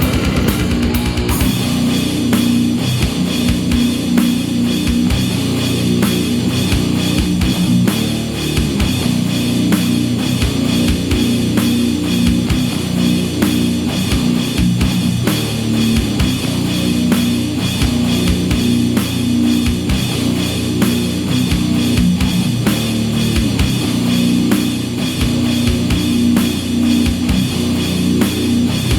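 Death metal played without vocals: distorted electric guitar riffing over a drum kit with rapid, steady bass drum hits.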